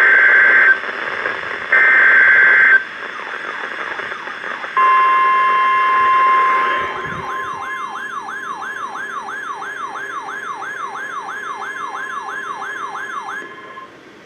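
Emergency Alert System broadcast over NOAA Weather Radio. Two raspy one-second data bursts of the coded alert header come a second apart. About five seconds in, a loud steady warning tone near 1050 Hz begins. From about seven seconds in, a quieter siren-like warble sweeps up and down about three times a second over the tone, all in a steady radio hiss, and stops shortly before the end.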